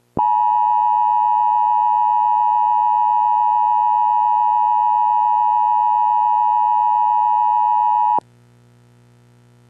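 Emergency alert attention tone: a loud, steady high-pitched tone held for about eight seconds that cuts off sharply. A faint low hum is left after it.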